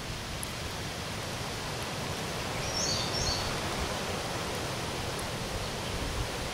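Steady outdoor background noise with a fluctuating low rumble, and a short high two-note chirp about three seconds in.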